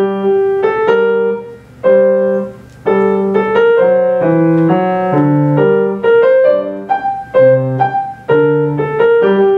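Grand piano played with a portato touch: an elongated staccato, each note held a little long but still detached. A short passage with an upper line and lower notes struck together, separated by brief gaps.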